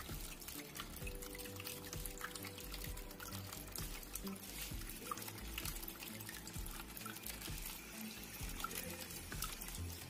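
Water trickling and splashing in a small tabletop waterfall fountain, a thin stream pouring from a spout into a bowl and spilling into a clay pot, with many small drips. Soft background music plays under it.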